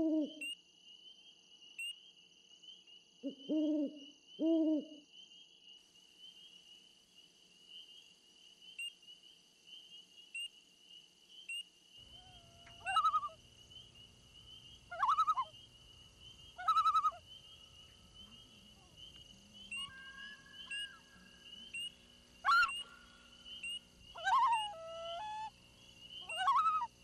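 Night ambience of an owl hooting three times in the first five seconds over a steady high-pitched insect trill. From about halfway through, a second, lower background hum comes in, and short bird calls repeat every couple of seconds.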